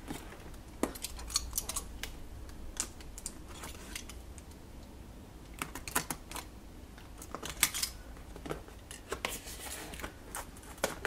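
Utility knife slicing through packing tape on top of a cardboard box: irregular scrapes and clicks in short clusters, with quieter gaps between.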